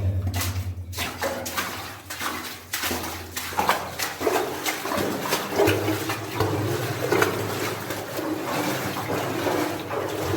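Legs wading through floodwater in a mine passage, with a splash and swish at each step.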